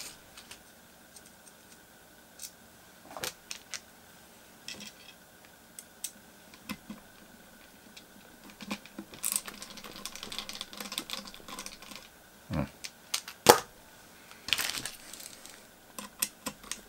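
Scattered light clicks and taps of small screws, a screwdriver and a metal PCI bracket being handled as the bracket is screwed onto a GPU waterblock, with brief rustling. The loudest sound is a single sharp knock about 13 seconds in.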